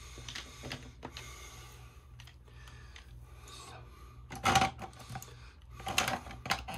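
Plastic diamond-painting pens clicking and clacking against a resin pen holder and each other as they are set back into its slots, with a louder knock about four and a half seconds in.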